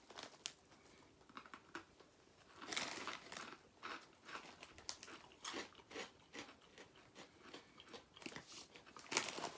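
Crunching and chewing of hard, dry potato sticks, with a crisp packet crinkling as a hand goes into it.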